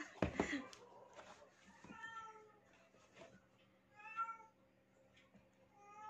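A cat meowing three times, short calls about two seconds apart, after a single short knock near the start.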